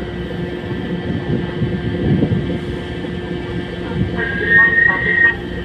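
Steady low drone of a ship's engines and machinery, heard from the forward deck while the ship manoeuvres into a berth. A brief high-pitched tone sounds about four seconds in.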